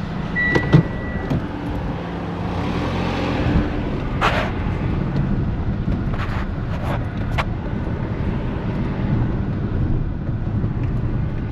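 Car running and moving, heard from inside the cabin: a steady engine and road rumble. A short high beep sounds near the start, and a few brief clicks come through the middle.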